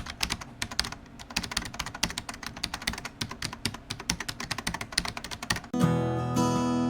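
Rapid, irregular clicking of computer-keyboard typing, about eight keystrokes a second. Near the end it gives way to strummed acoustic guitar music.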